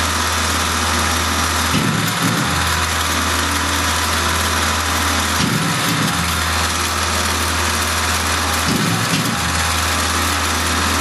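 Tormach PCNC 1100 mill running as a Duality lathe, its spindle spinning the part while the tool takes the finishing cut on a concave radius. The machine noise is steady, and a low hum under it drops out briefly about every three seconds.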